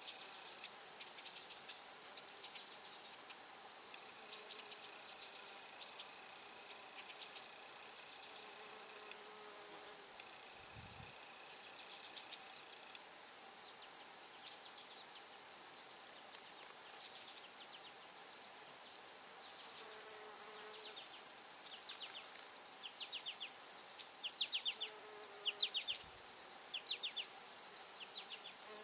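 Steady chorus of crickets and other singing insects, a continuous high-pitched trilling in two overlapping pitches. A few faint, quick chirps come in over it in the last third.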